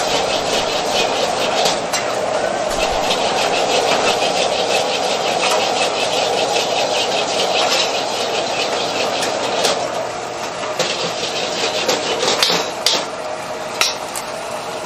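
Wok cooking: a steady rushing burner noise under a metal ladle scraping and tapping against a wok as egg fried rice is stirred and tossed, in quick clicks. There are a few sharper clanks of ladle on wok near the end.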